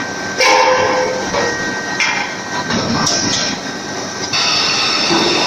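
Forging-shop machinery working hot steel: a steady, dense mechanical noise with metallic knocks and ringing, squealing tones.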